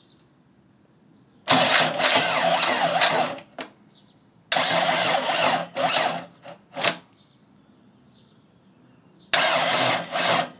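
Electric starter cranking a Kubota V2203 four-cylinder diesel in three bursts, the first about two seconds long, the second shorter and followed by a few quick taps, the last about a second. Each burst cuts off abruptly and the engine does not catch.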